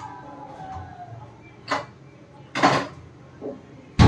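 Kitchen handling sounds while cooking: a few separate clicks and knocks of utensils and containers, then a heavy thump near the end, the loudest of them.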